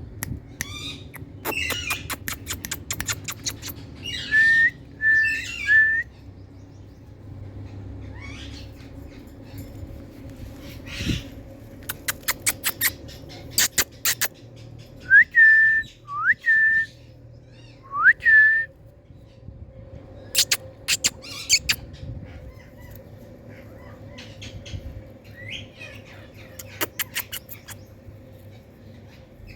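Indian ringneck parakeet whistling: short calls that glide upward and level off, in groups of two or three, between quick series of sharp clicks. A faint steady hum runs underneath.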